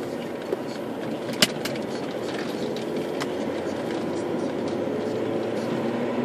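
Cabin noise inside an Audi A4 Avant TDI on the move: steady diesel engine and tyre road noise, with the engine note rising a little in the second half as the car picks up speed. A few sharp clicks cut through, the loudest about a second and a half in.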